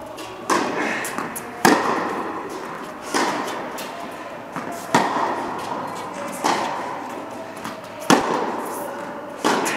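Tennis ball struck back and forth by rackets in a rally: sharp pops about every one and a half seconds, echoing in a large indoor hall, with the loudest hits from the nearer player.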